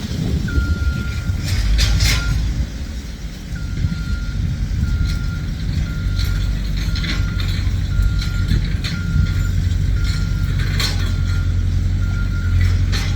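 Digital measuring wheel beeping as it is rolled over the ground: short high beeps about every half second, stopping for a couple of seconds near the start and then resuming. Under them runs a steady low rumble with a few sharp clicks.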